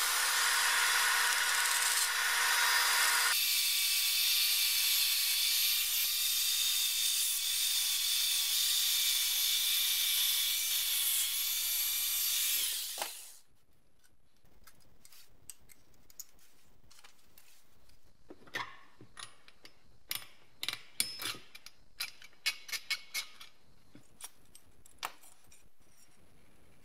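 Small power grinder running steadily for about thirteen seconds, grinding down the punched bumps that hold the mincer's locking mechanism; its pitch shifts a few seconds in, and it cuts off suddenly. Afterwards come light scattered clicks and clinks of the loosened metal parts being worked by hand.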